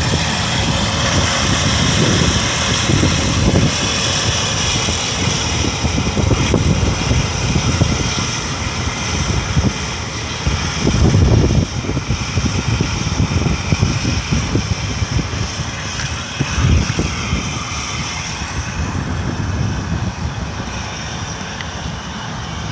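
Rice harvesting machine running steadily, its engine giving a continuous low rumble with machinery noise above it.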